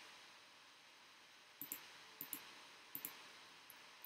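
Faint computer mouse clicks over a quiet hiss: three quick press-and-release pairs starting about a second and a half in, then a single faint click near the end.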